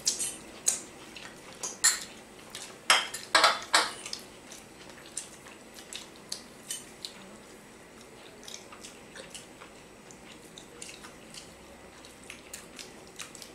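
Metal forks and spoons clinking and scraping on ceramic dinner plates as people eat noodles. Sharp clinks come thick and loud in the first four seconds, then sparser and fainter.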